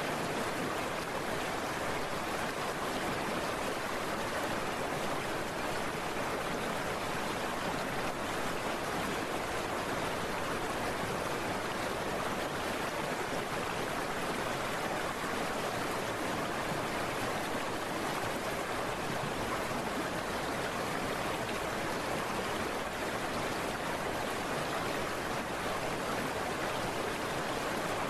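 Steady, even rush of heavy rain and wet-road spray heard while riding a scooter through a downpour, with no breaks or changes.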